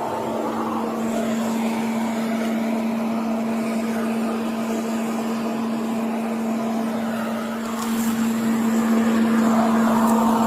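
Steady roadside vehicle noise with a constant low drone, growing louder near the end.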